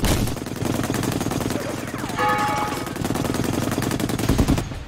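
M2 Browning .50-calibre heavy machine gun firing a long sustained burst of rapid, evenly spaced shots, stopping shortly before the end.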